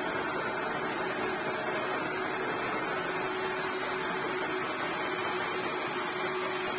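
Steel wire drawing machine running at a steady speed: a continuous mechanical hum with a steady whining tone in it.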